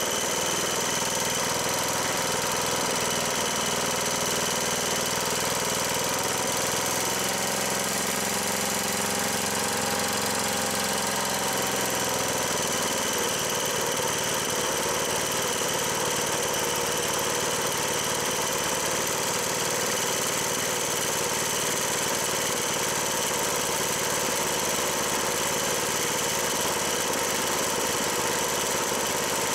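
Tecumseh Enduro OHH55 small single-cylinder engine running at a steady speed while its crankshaft speed is read with a mechanical tachometer during governor adjustment. Its tone shifts briefly about a quarter of the way in, then settles back.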